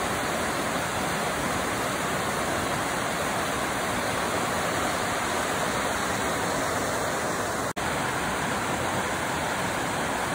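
Rushing stream tumbling over rocks in whitewater rapids: a steady, full rush of water, broken once by an instant's dropout a little under eight seconds in.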